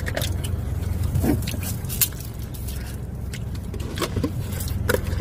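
Steady low hum of a car idling, heard inside the cabin, with scattered light clicks and rustles of a plastic iced-coffee cup, straw and food being handled.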